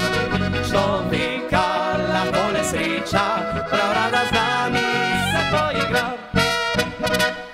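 Slovenian folk-pop ensemble playing the instrumental close of a song: button accordion, trumpet, clarinet, electric guitar and bass guitar, with wavering melody lines from the wind instruments. It ends with a last chord, after which the sound falls away.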